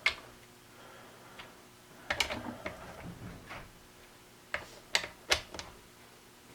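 Click-type torque wrench clicking as it reaches its set torque of about 105 inch-pounds on the valve body bolts of a Ford C6 automatic transmission. Several sharp clicks at uneven intervals, some in quick pairs.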